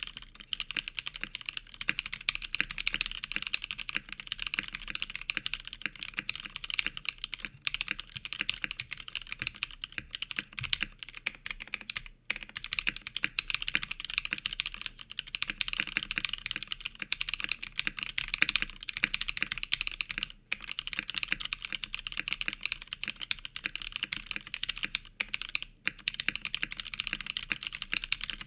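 Mechanical keyboard with lubed Novelkeys Cream switches on a 3mm acrylic plate and PBT keycaps, typed on fast and steadily, keystroke after keystroke, with a few brief pauses. The key clacks are sharp and bright, with little deep bottom to them.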